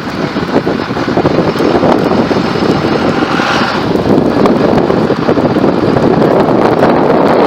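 Wind buffeting the microphone over the steady noise of a moving truck, with a brief louder rush of hiss about three and a half seconds in.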